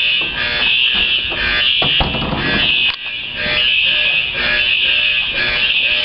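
Building fire alarm sounding loudly and without letup, a high-pitched repeating alarm tone. It is one of a run of alarms from a system that has been malfunctioning on and off.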